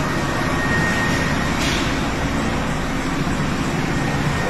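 Helicopter hovering low, its rotors and turbine giving a steady, loud rumbling noise with a thin steady whine above it, as its downwash dries the wet cricket pitch.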